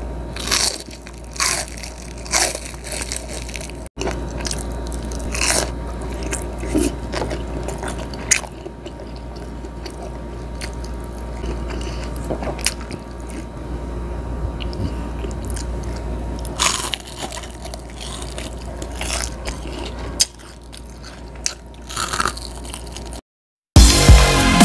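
Close-miked biting and chewing of crispy fried calamari and grilled squid: repeated crunchy bites between stretches of chewing. Near the end the sound cuts out briefly and electronic intro music starts.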